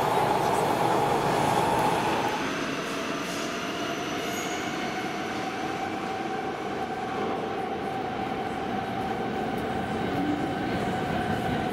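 Warsaw Metro train running alongside the platform, loud for the first two seconds, then settling into a steady whine as it pulls away into the tunnel.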